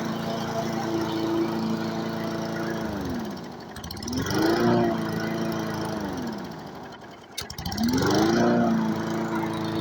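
Push mower's Briggs & Stratton flathead engine running. Twice its speed drops away sharply and then climbs back up to a steady run, loudest just as it recovers.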